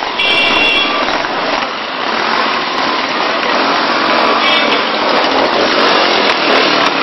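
Several Royal Enfield motorcycles riding past with their engines running, a dense, rough engine noise.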